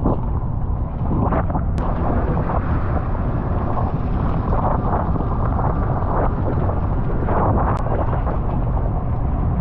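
A boat running on open water: a steady low rumble with heavy wind buffeting the microphone in irregular gusts.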